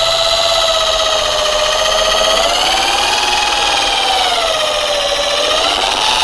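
Electric 440-watt J.LD J3310 rotary car polisher running at speed 2 with a foam pad on a car's paint: a steady motor whine whose pitch sags and rises a little as it works. At this speed it holds stable.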